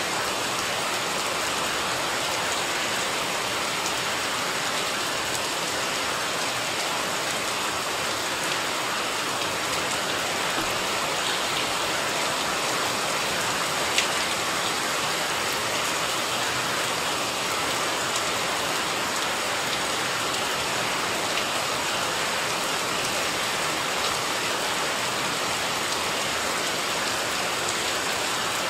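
Steady rain falling on leaves, paving and a flowerpot full of standing water, an even patter throughout. One sharp tap stands out about halfway through.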